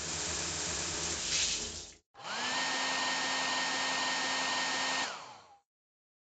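Whirring of a small electric appliance motor with rushing air, like a hair dryer, in two runs. The first lasts about two seconds. After a brief gap, the second lasts about three seconds; its steady whine rises as the motor spins up and drops as it winds down near the end.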